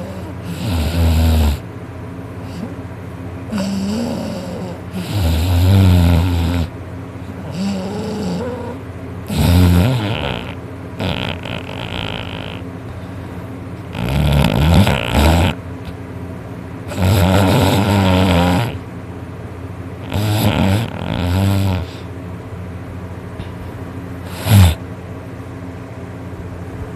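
Loud, irregular snoring: about ten drawn-out snores a few seconds apart, some with a wavering, moaning pitch, and a short sharp snort near the end, over a steady low hum.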